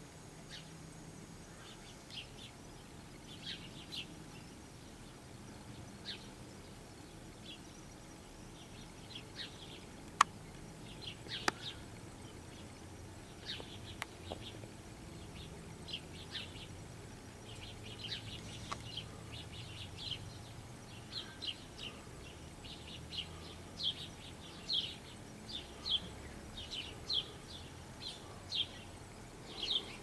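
Small songbirds chirping: many short, high chirps that grow busier in the second half. Two sharp clicks stand out about ten and eleven and a half seconds in.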